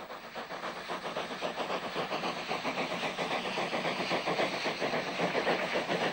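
Steam locomotive working a train, a quick run of exhaust beats with a hiss of steam, growing louder over the first two seconds as it draws near.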